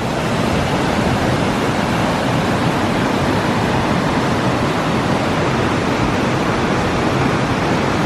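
Devil's Punchbowl Falls, a 131-metre waterfall, pouring down: a loud, steady, even rush of falling water.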